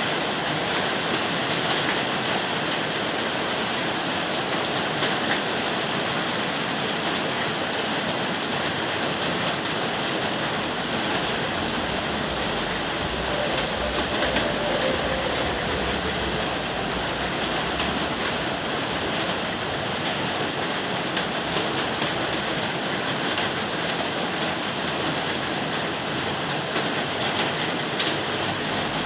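Steady rain falling, an even hiss with scattered sharp drop ticks. About halfway through, a low rumble swells and then fades.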